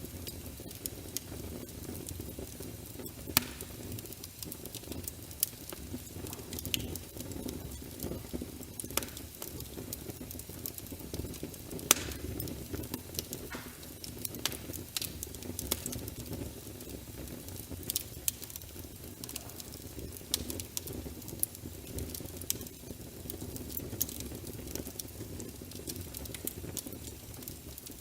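Wood fire in a fireplace crackling, with irregular sharp pops scattered throughout over a steady low rumble of the flames; the loudest pops come about 3, 12 and 18 seconds in.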